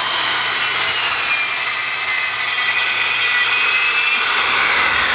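Handheld circular saw running steadily as it cuts through a sheet of plywood, pushed along a guide rail.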